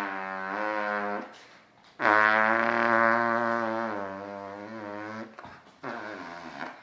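Fart noises made by blowing through a drinking straw pressed against an armpit. There are three buzzing blows: a short one at the start, a long one of about three seconds, and a fainter one near the end.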